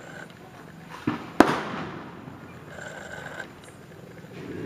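Firecrackers going off: a small pop about a second in, then a sharp loud bang just after it, and another bang right at the end.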